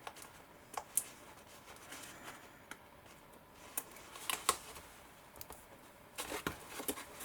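Scattered light clicks and taps of folded card stock being handled and tucked into place, with a small cluster of them about two-thirds of the way through.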